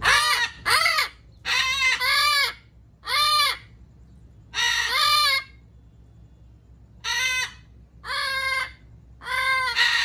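Amazon parrot calling: a run of loud, short calls, each rising and then falling in pitch, about nine in all, with a pause of over a second in the middle.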